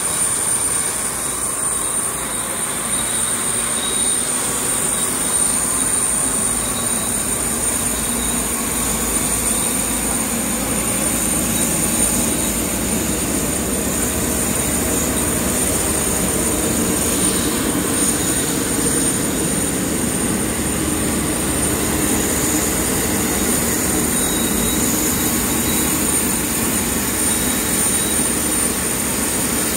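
Steady jet-turbine whine on an airport apron: a high whistle over a constant rushing hum, with no break and no change in pitch.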